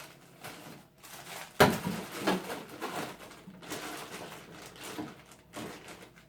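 Household handling noises: knocks, clatter and rustling of food containers and packaging being moved in and out of a fridge, with a sharp knock about a second and a half in.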